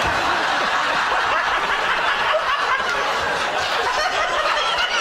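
Studio audience laughing, one long unbroken laugh.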